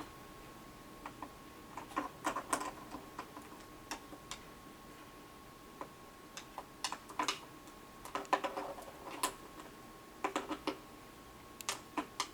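Scattered light clicks and taps, in small clusters, as a Senegal parrot picks up and handles puzzle pieces. A faint steady tone runs underneath.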